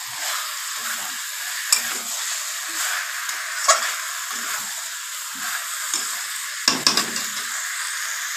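Chicken pieces and potatoes in spice masala sizzling in a metal kadai while a flat metal spatula stirs and scrapes them. Sharp clicks of the spatula against the pan come about two and four seconds in, with a few close together near the end.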